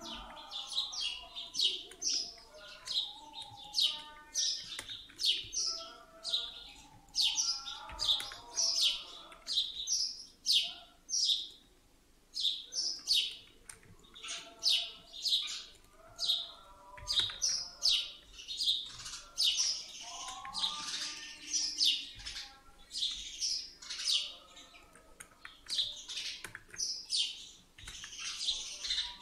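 Birds chirping: a continuous run of short, high chirps, a couple every second, with softer warbling notes underneath.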